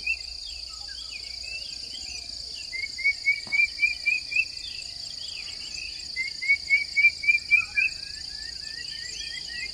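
A bird sings two runs of seven or eight short, rising notes in quick succession, about three seconds apart. Behind it run a steady high-pitched insect drone and fainter chirps from other birds.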